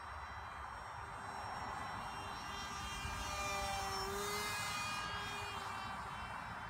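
A small radio-controlled airplane's motor and propeller whine as it makes a low flyby. The whine grows louder and higher as the plane approaches, then drops in pitch as it passes about four seconds in.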